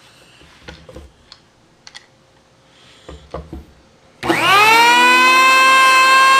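A few light handling knocks, then a DeWalt electric hand planer is switched on about four seconds in: its motor whine rises quickly in pitch and settles into a loud, steady high running note.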